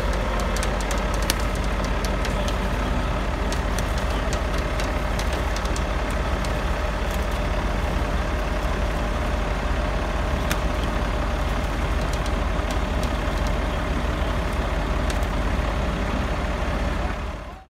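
A heavy truck's diesel engine running steadily, a deep constant rumble with a faint steady whine and scattered small clicks. It cuts off abruptly near the end.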